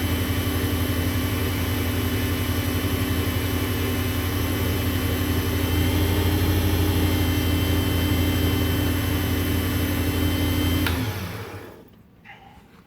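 WEN benchtop lathe with a third-horsepower motor running steadily with a low hum and a faint high whine, then switched off with a click about eleven seconds in, the motor dying away within a second.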